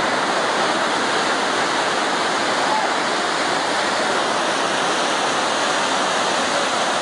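A river in flood, its fast water rushing loudly and steadily.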